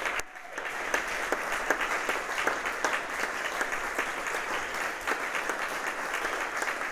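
Audience applauding: dense, steady clapping that sets in just after the start.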